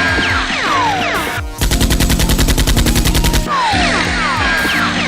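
Movie-style automatic gunfire sound effect: a rapid, even burst of about two seconds starting about a second and a half in, between stretches of quick falling whistling sweeps like bullets whizzing past, over background music.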